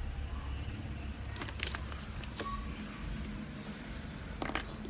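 Plastic toy building bricks clicking and clattering as hands pick through a loose pile, a few sharp clicks with the loudest near the end, over a steady low hum.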